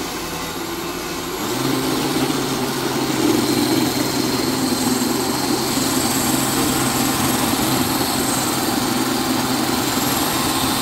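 Ryobi 40V brushless cordless snow shovel running, its motor and rotor humming steadily as it clears light snow. The hum grows louder about a second and a half in, then holds steady.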